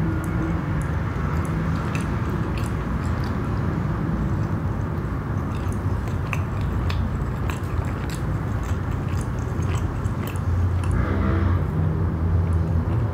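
Close-miked chewing of a mouthful of chocolate-filled naan bread with the mouth closed: a steady low chewing rumble dotted with small wet mouth clicks, a little louder near the end.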